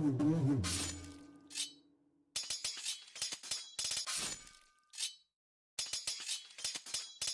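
Close-up cigarette sounds: two short bright rasps with a clink about a second in, then runs of dense, sharp crackling as the cigarette burns on the draw, broken by dead silence. Background music fades out at the start.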